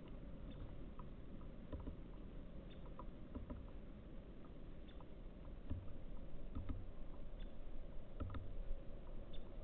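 Birds at a seed feeder: a scatter of light taps and ticks from pecking and shuffling on the feeder, with a few soft low thumps in the second half.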